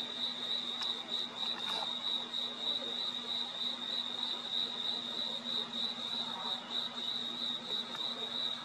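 Crickets chirping: a steady high-pitched chirp pulsing about three times a second, over a faint low hum.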